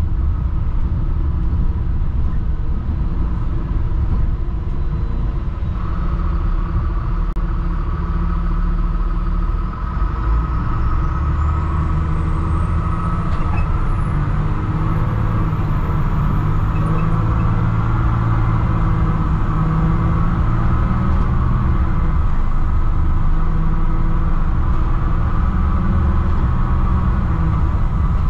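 Diesel engine of a 2007 Thomas HDX school bus, a Mercedes engine, running steadily while the bus drives. It dips briefly about a third of the way in, then its note firms up. A faint high whine rises steadily over several seconds from that point and then holds.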